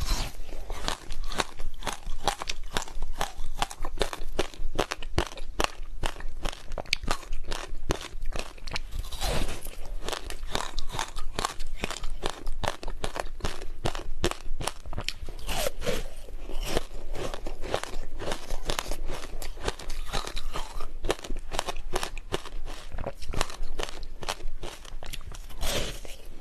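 Ice being crunched and chewed close up: a dense, irregular run of sharp cracks and crunches as the teeth break the ice.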